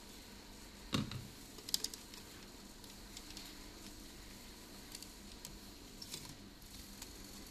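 Handling noises as the front display module of a Honeywell XNX gas transmitter is worked out of its housing with a thin wire tool: a knock about a second in, a quick cluster of sharp clicks just after, then scattered light clicks.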